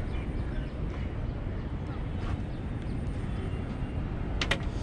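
Steady low rumble, with a quick cluster of sharp clicks or taps about four and a half seconds in.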